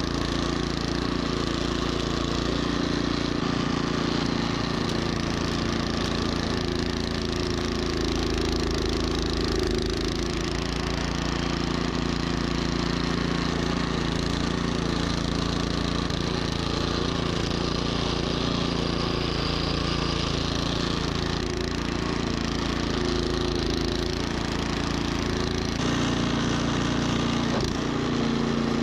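Troy-Bilt snowblower running steadily, its engine droning under a rough crunching noise of the auger and impeller chewing through snow.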